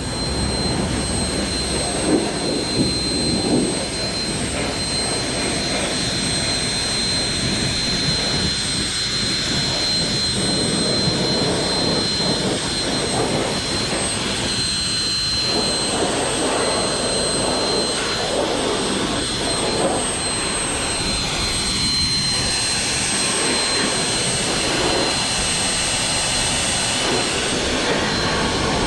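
Leaf blower running steadily with a high whine, blowing water off a freshly pressure-washed lawn mower to dry it.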